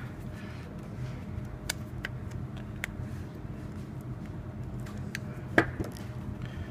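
Light clicks of needle-nose pliers and stiff copper wire being handled at a plastic light fixture. Near the end comes one sharper knock as the pliers are set down on the table. A low steady room hum runs underneath.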